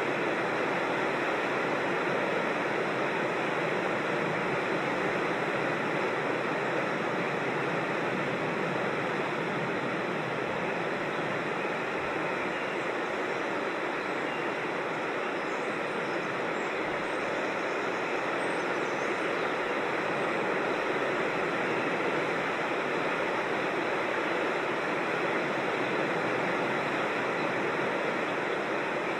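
Creek water rushing over rocks and small falls: a steady, even rush.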